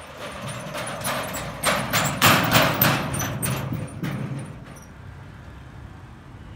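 Footsteps on a walkway over water: a quick run of knocks, several a second, that grows louder, peaks about halfway, then fades out by about five seconds in.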